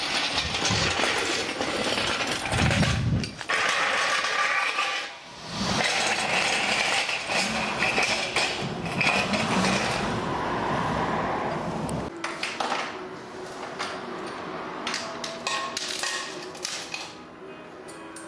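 Metal clanking and clinking of tools and lifting chain while an engine is rigged on a shop crane, over a loud, even noise that drops away about twelve seconds in, leaving separate clicks and clinks.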